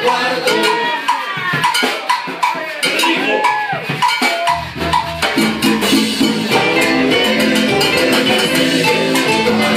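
Live Cuban band playing salsa-style dance music, with percussion prominent. About halfway through, a bass line comes in and the rhythm fills out.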